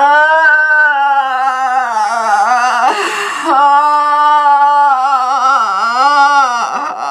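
A voice holding one long, open vocal tone with a slight waver, an emotional-release 'one sound'. It turns rough and shifts pitch briefly about three seconds in, then steadies again and dips for a moment near the end.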